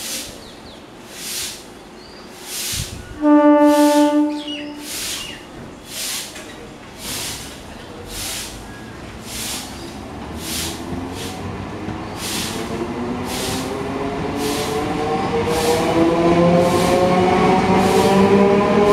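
Electric multiple-unit local train sounding its horn in a few short pulses about three seconds in, then pulling away alongside the platform with a regular clicking of wheels over rail joints. A motor whine rises steadily in pitch as it gathers speed, growing louder toward the end.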